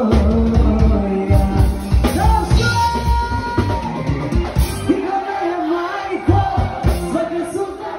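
Live band playing with a woman singing lead into a microphone. The bass drops away for over a second about five seconds in, then comes back.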